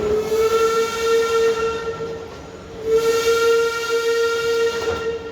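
Park train's whistle blowing two long blasts with a short gap between them, the first sliding up into pitch as it starts.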